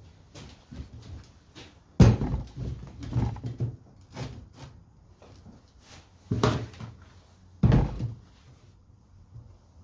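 Hard plastic Pelican Vault toolboxes being set onto a welded tractor toolbox mount: a string of knocks and thumps, the loudest about two seconds in and again twice between six and eight seconds.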